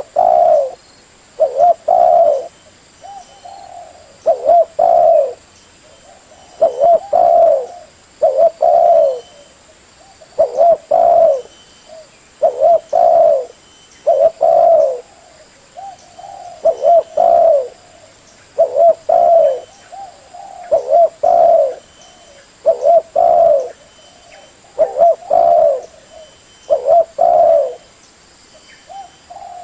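Spotted dove (Spilopelia chinensis) cooing over and over, each short phrase of a few coos repeated about every two seconds.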